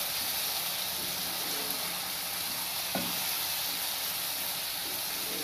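Onion-tomato spice masala sizzling steadily in oil in a nonstick pan while a wooden spatula stirs it, being fried down with a splash of water just added. One light knock about three seconds in.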